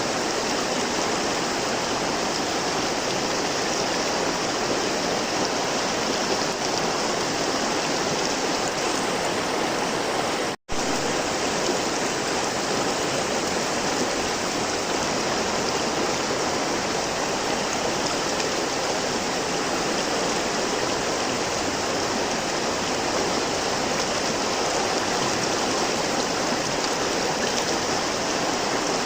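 River water flowing steadily, a continuous rushing with no other sounds. The sound drops out completely for an instant about ten and a half seconds in.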